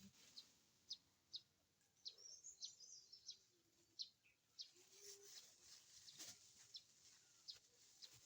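Faint birds chirping: short high calls scattered through, with a quick twittering run about two seconds in. A single sharp click comes a little past six seconds.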